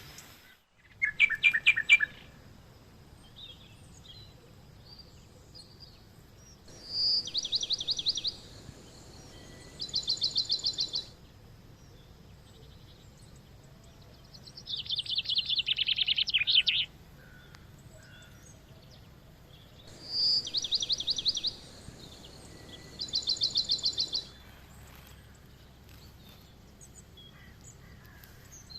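Songbirds singing in a forest: short, rapid trilled phrases of high notes, each lasting a second or two, repeated six times over a faint, quiet background.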